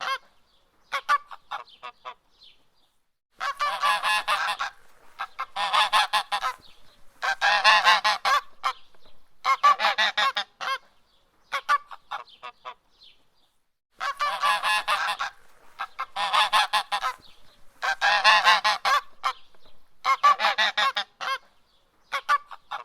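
Angry goose honking in repeated bouts of rapid honks, each bout about a second long with short pauses between. A few fainter, scattered honks fill a lull around the middle.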